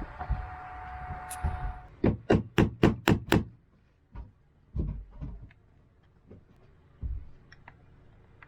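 A steady hum that stops about two seconds in, then about six quick knocks in a row, followed by a few scattered lighter thumps: hand work fitting a small fan in place in a boat's berth.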